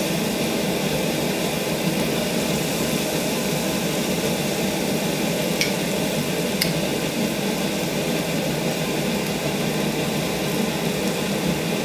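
Kebabs on metal skewers sizzling on an indoor cooktop grill: a steady hiss, with two light clicks of metal tongs about six seconds in.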